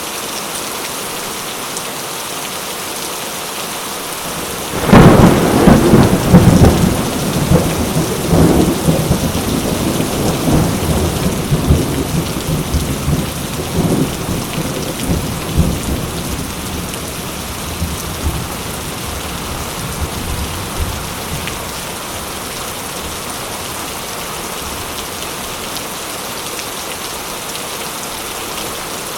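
Steady heavy rain, with a sudden loud thunderclap about five seconds in whose rumbling goes on and slowly fades over the next ten seconds or so.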